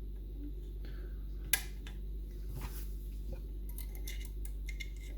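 Small metal clicks and scrapes of hand-made lever-lock picking tools against a Union Strongbolt mortice lock as the tool is worked toward the keyhole: one sharp click about a second and a half in, then a quick run of clicks near the end, over a steady low hum.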